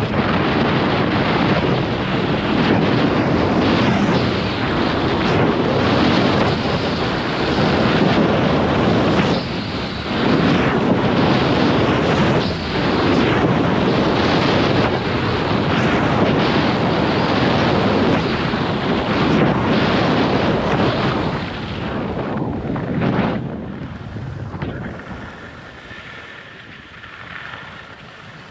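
Wind buffeting the camera microphone as a skier runs fast downhill into a strong headwind. It dies down over the last few seconds as the skier slows.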